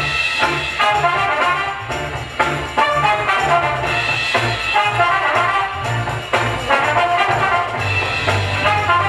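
DJ-played music with brass horns over a drum and bass beat.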